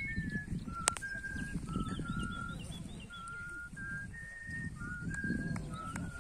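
Someone whistling a slow tune of clear held notes that step up and down in pitch, over a low rumble, with faint bird chirps.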